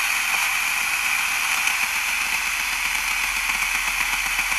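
Steady FM static hissing from the speaker of a handheld multiband radio receiver, with no voice or music coming through.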